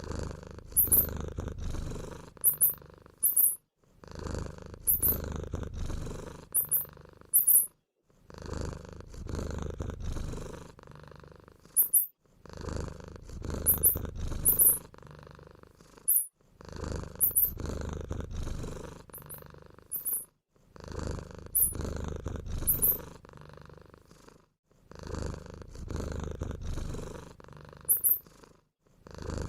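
Looped mouse sounds: very high-pitched squeaks in quick twos and threes over a low, rough rumble. The same clip of about four seconds repeats with short silent gaps between repeats.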